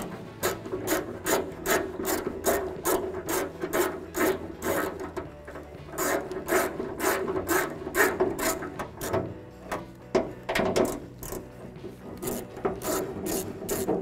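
Hand ratchet on a 10 mm socket and extension clicking in quick even runs, about three clicks a second, as the nuts holding the trunk lock cylinder are loosened. The runs are broken by short pauses.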